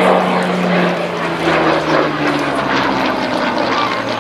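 Hawker Hurricane Mk.1's Rolls-Royce Merlin V12 engine and propeller flying past overhead, the engine note falling steadily in pitch as it goes by.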